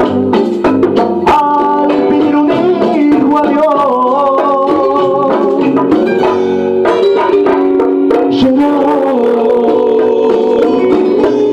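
A man singing a song into a microphone, with hand-drum strikes and sustained chord accompaniment behind his voice.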